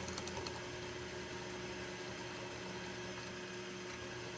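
Drill press motor running with a steady hum while a 3/16-inch bit bores into a piece of forged metal.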